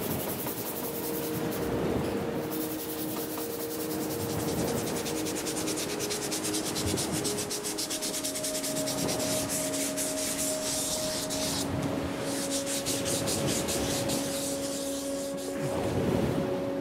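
Sandpaper rubbed by hand over the lacquered surface of an old teakwood bowl, scraping in repeated strokes to strip away the cracking lacquer.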